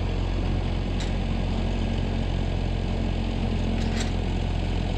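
An engine idling steadily, with a deep even hum, and two brief knocks, one about a second in and one near the end.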